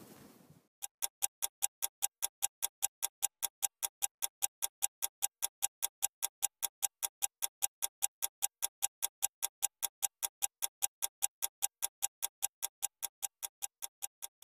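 Mechanical stopwatch ticking, a steady run of crisp ticks at about four a second.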